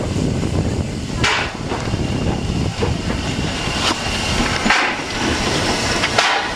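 750 mm narrow-gauge steam locomotive Kc4-332 moving slowly, giving a few sharp hissing exhaust chuffs a second or more apart over a low rumble.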